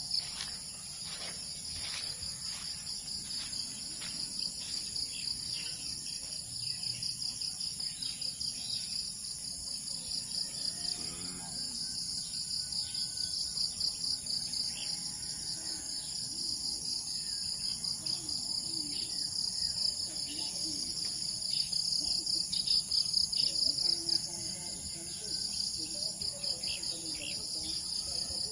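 A chorus of insects in rural fields: a steady, high, pulsing trill. Faint scattered calls sit beneath it.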